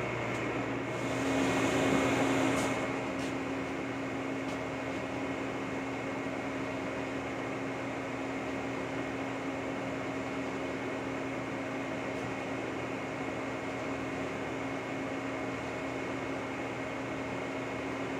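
Portable line boring machine running steadily, its boring bar turning as it cuts an excavator quick-attach pin bore: a constant motor hum with a few steady tones. The sound swells briefly about a second in.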